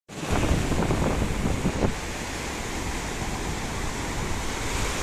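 Sea surf breaking and washing up the sand in a steady rush, with wind rumbling on the microphone, heaviest in the first two seconds.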